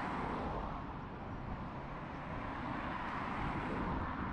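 Road traffic going by: tyre and engine noise of a van and other vehicles passing, swelling at the start and again about three seconds in.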